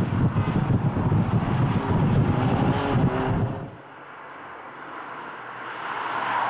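A car engine running hard at high revs. About two-thirds of the way in the sound drops off suddenly, and a quieter car engine, an Audi S5's, grows louder toward the end as the car approaches.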